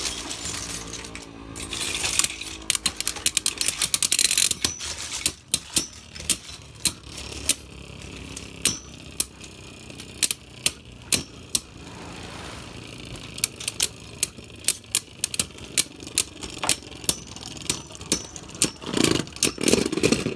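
Beyblade Burst spinning tops, one of them Dynamite Belial, whirring around a plastic stadium and clacking against each other dozens of times, with a cluster of louder clashes near the end before the battle stops.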